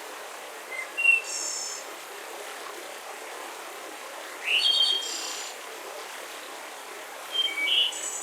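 Small birds chirping in three short bursts, about a second in, midway and near the end, the first the loudest, over a steady background hiss of forest ambience.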